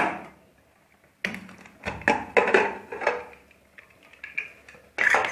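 Metal clanks and knocks of a pressure cooker being opened, its lid and pot striking each other, with brief ringing after each knock.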